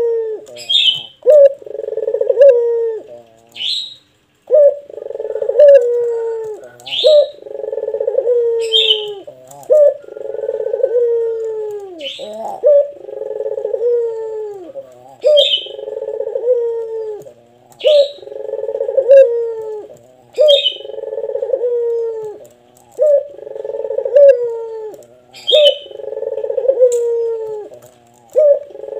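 Puter (Barbary dove) cooing over and over in long, deep coos, each about a second long. Short, sharp high-pitched notes come about every two seconds between the coos and are the loudest sounds.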